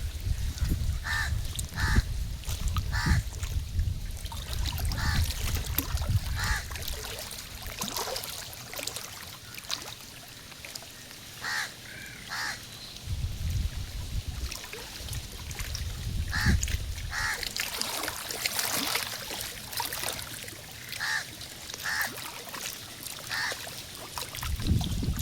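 Birds calling in short, repeated calls, often about a second apart in runs, over a low rumble that comes and goes.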